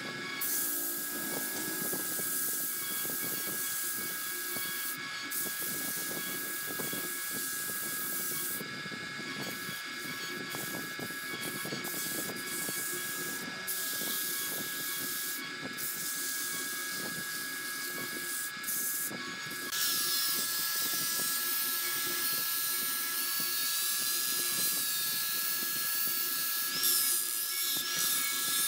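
Electric wood lathe running with a steady motor whine and hiss as a wooden vase spins on it. About two-thirds of the way through, an angle grinder with a sanding disc starts and runs against the spinning vase, louder, with a higher whine that wavers up and down.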